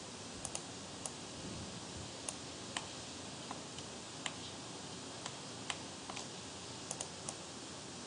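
About a dozen sharp, irregularly spaced clicks of computer mouse buttons and keys, some coming in quick pairs, over a steady background hiss.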